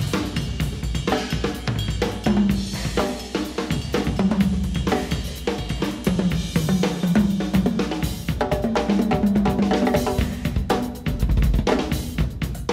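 Two drum kits played together in an improvised jam: a dense, continuous stream of snare, bass drum, hi-hat and cymbal hits, with runs of pitched tom notes from a very large DW kit with many toms.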